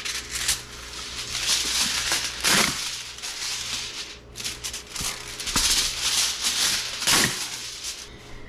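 Aluminum foil being pulled off the roll, torn across the box's cutting edge and crinkled as sheets are laid over glass dishes, with two louder rasping tears several seconds apart.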